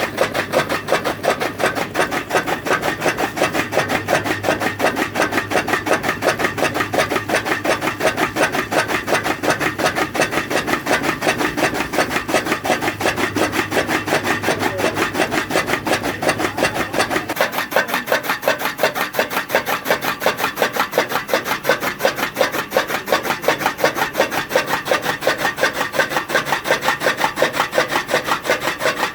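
Animal fodder being chopped: a fast, even run of rasping cutting strokes. About two-thirds of the way through, the low part of the sound drops away and it turns thinner and brighter.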